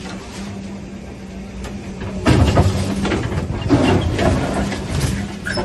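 Hyundai excavator's diesel engine running with a steady hum. From about two seconds in, a louder stretch of crunching and crashing lasts a few seconds as the bucket breaks reinforced concrete walls.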